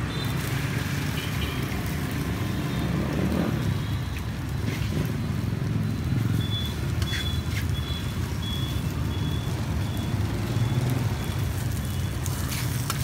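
Pieces of rice-flour cake frying in a steel wok under a steady low rumble. From about halfway a high electronic beep repeats about twice a second. Near the end a metal ladle scrapes and taps against the wok.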